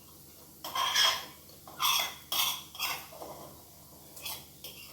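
Metal kitchen utensil clinking and scraping against cookware: a quick run of clinks and scrapes in the first three seconds, then two lighter clinks near the end.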